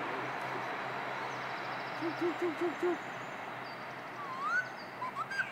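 Birds calling over a steady background hiss: four quick low hooting notes about two seconds in, then a few short rising chirps near the end.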